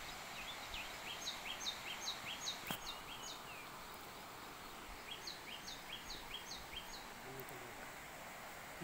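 A bird calling from the trees: a run of short, high, falling notes, about three a second, then a second run after a pause, over faint outdoor background noise.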